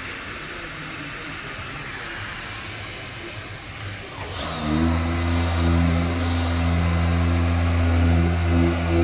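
A steady hiss, then about four and a half seconds in a motor-driven workshop machine starts up and runs with a steady low hum.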